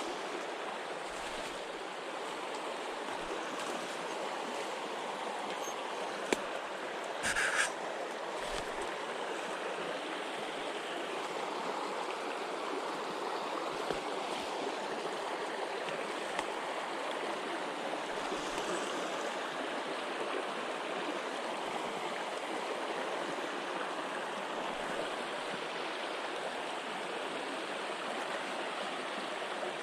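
Mountain stream water rushing steadily over rocks, with a brief louder knock about seven seconds in.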